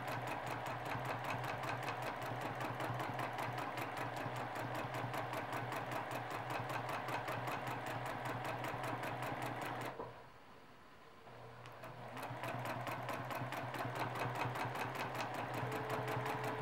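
Domestic sewing machine free-motion quilting, needle clattering in a rapid, even run of stitches over a steady motor hum. The stitching stops for about two seconds a little past the middle, then starts again and builds back up to speed.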